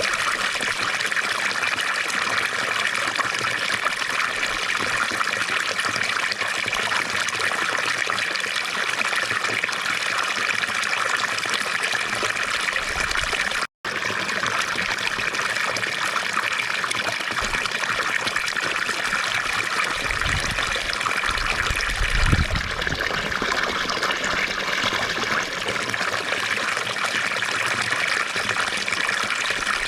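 Water of a fountain splashing and trickling in a steady, continuous stream, with a split-second dropout near the middle.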